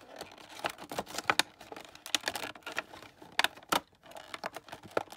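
Plastic packaging crinkling and crackling as it is handled: irregular sharp crackles and clicks, the loudest about a second and a half in and again twice near three and a half seconds.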